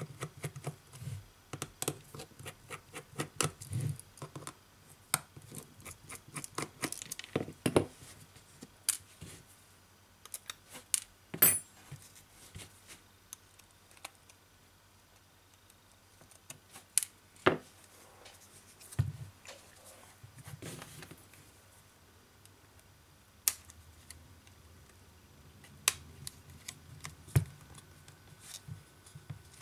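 Small metal tools clicking and scraping against the plastic midframe of a BQ Aquaris E6 smartphone as it is unscrewed and pried apart. Irregular sharp clicks and snaps, with a few louder snaps in the middle and quieter stretches between.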